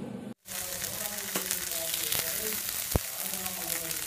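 Sweet paniyaram batter frying in hot ghee in the wells of a cast-iron kuzhi paniyaram pan: a steady sizzle with light crackling that sets in after a brief gap near the start. A single sharp click comes about three seconds in.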